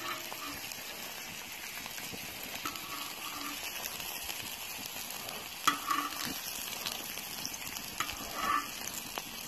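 Bacon sizzling steadily on a hot steel plow-disc cooker (a discada). A metal spatula scrapes and taps on the disc now and then as the strips are turned, most sharply a little before six seconds in.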